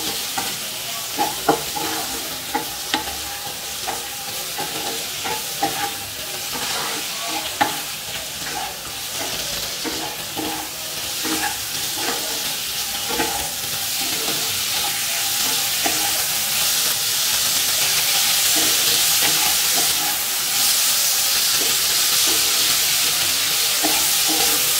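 Ridge gourd, potato and tomato sizzling in hot mustard oil in a non-stick kadai while a wooden spatula stirs and scrapes them, with frequent light knocks of the spatula against the pan. The sizzle grows louder in the second half.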